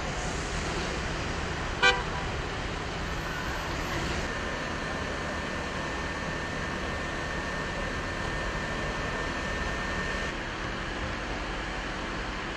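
Steady outdoor street noise with one short car horn toot about two seconds in.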